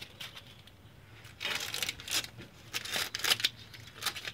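Blue masking tape being peeled off a freshly painted diamond-plate metal cover in a series of short rips, starting about a second and a half in.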